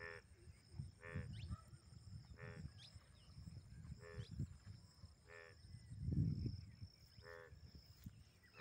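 A frog croaking over and over, a short call every second or so, faint, with a steady high insect drone behind it and a low rumble about six seconds in.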